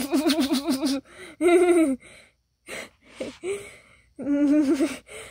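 A person laughing hard in three bouts of rapid, wavering 'ha-ha' pulses, with short gasps for breath between them.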